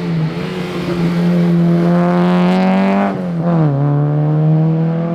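Alfa Romeo GTV 2000's twin-cam four-cylinder engine pulling hard under load, the revs climbing. About three seconds in the revs drop sharply with an upshift, then climb again.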